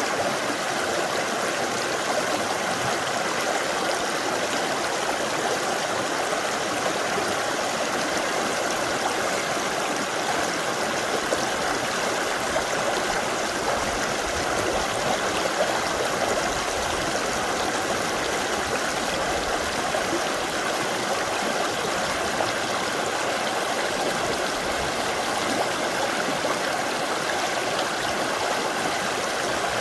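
Clear mountain stream rushing steadily over rocks in a valley, a constant, even flow of water noise.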